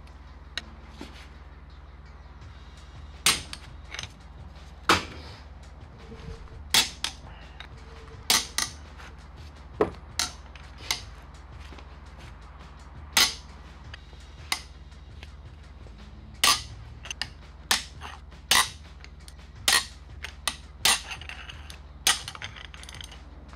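Case bolts of a Toyota C52 transaxle cracking loose one after another under a breaker bar: about fifteen sharp snaps at irregular intervals, roughly one a second, some followed by a smaller click.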